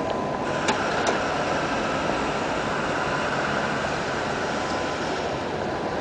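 Steady city-street ambience: a constant hum of traffic and the open square, with a couple of light clicks about a second in.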